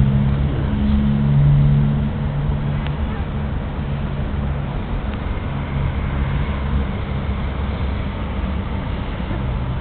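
A steady low engine hum, louder for the first two seconds and then easing off.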